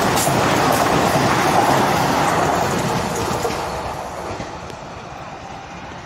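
Vande Bharat Express train passing close by at high speed: a loud, steady rush of wheel-on-rail and wind noise. It drops to a quieter sound about four seconds in.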